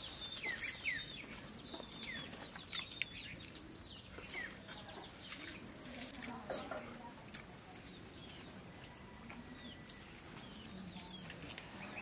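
Small birds chirping over and over in short falling chirps, with a chicken clucking low now and then and a few sharp clicks.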